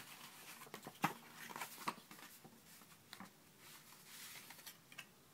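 Paper booklets and packaging being handled: light rustling with scattered small taps and clicks, the loudest about a second in.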